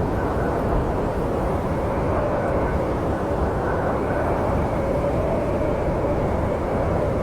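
Snowstorm wind ambience: a steady low rushing noise with a faint, slowly wavering whistle through it.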